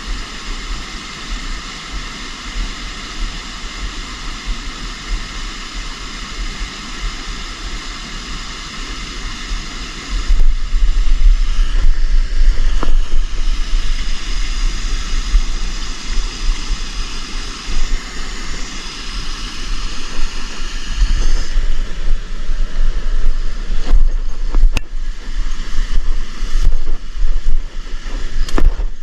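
Wind buffeting the microphone with a low rumble over the steady rush of river water; the buffeting grows louder and gustier about ten seconds in.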